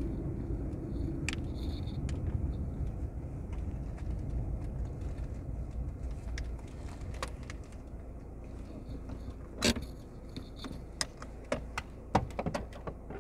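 Road and wind rumble of a moving vehicle, fading as it slows, then a string of sharp clicks and knocks in the last few seconds.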